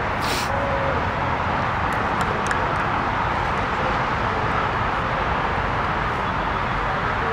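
Steady roar of distant road traffic, with a short sharp sound just after the start.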